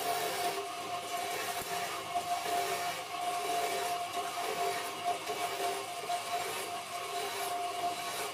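Wood lathe running with a steady whine while a hand-held chisel cuts into the spinning wooden spindle, a continuous rough shaving noise over the motor.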